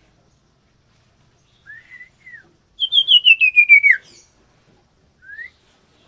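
Common iora (cipoh) singing: a couple of soft short whistles, then a loud rapid run of about ten notes stepping down in pitch over about a second, and one soft rising whistle near the end.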